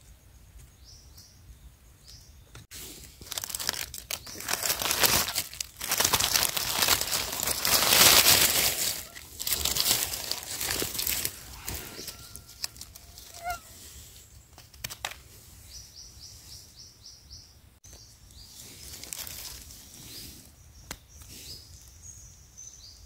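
Dry fallen leaves rustling and crackling as hands brush through the litter and work mushrooms out of the ground, in a long stretch of several seconds in the middle. Short runs of high bird chirps come and go.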